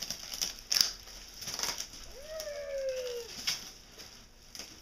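Cardboard, plastic wrap and packing paper being pulled about and crumpled as a box is unpacked, rustling and crinkling in several short bursts, the loudest just under a second in. About two seconds in, a brief falling pitched sound lasts about a second.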